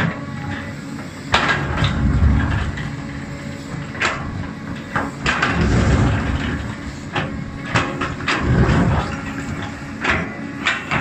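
Cat 320D hydraulic excavator digging: its diesel engine drones under load while the bucket scrapes and clanks against stones in the soil, with repeated sharp knocks and heavier surges as it scoops and lifts.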